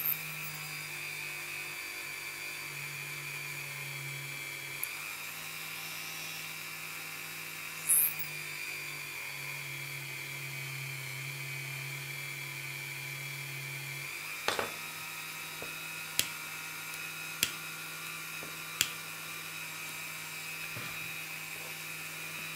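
Flex-shaft rotary tool running steadily at speed with a bamboo skewer in its chuck, giving a steady high whine over a low hum. A few sharp clicks come in the second half.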